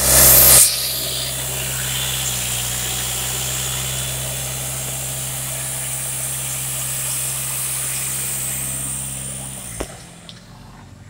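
LDV T60's 2.8-litre four-cylinder turbo-diesel idling steadily, engine tested good, after a loud burst in the first half-second. The engine stops near the end with a short click.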